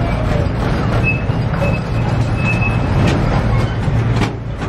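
Miniature train running along its track, heard from aboard the passenger car: a steady rumble with a few sharp clicks of the wheels and several short, faint high squeaks.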